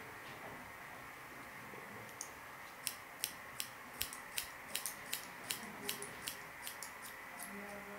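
Barber's scissors snipping hair in a scissor-over-comb cut, a steady run of crisp snips at about three a second that begins about two seconds in.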